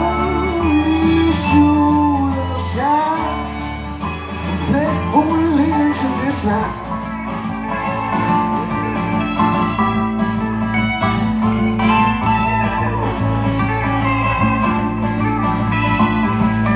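Live country band playing an instrumental passage: acoustic guitar with pedal steel guitar and keyboard. Gliding, sliding notes in the first six seconds or so give way to steadier held chords.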